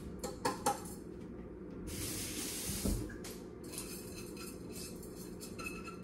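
Dry uncooked rice pouring into a pot: a few light knocks as the container is handled, then a rushing hiss of grains for about two seconds, then scattered small rattles as the last grains are shaken out.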